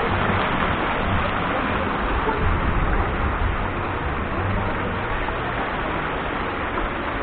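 Steady rushing noise with an uneven low rumble, like wind and road noise from riding along.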